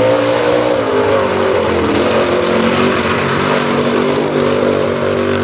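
Unlimited mud bog buggy's engine running hard at high revs, held steady near full throttle. A hiss of the tyres throwing mud and dirt runs underneath.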